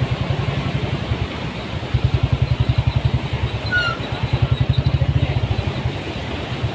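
Royal Enfield Bullet motorcycle's single-cylinder engine running at a steady cruise: a rapid, even thumping. The thumping eases briefly about a second in and again near the end, over a haze of wind noise.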